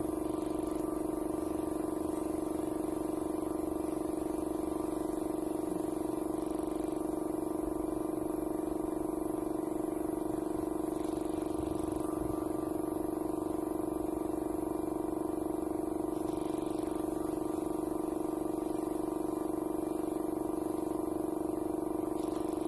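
Air compressor running with a steady hum and a slight regular pulse, feeding the air hose of a spray-painting setup.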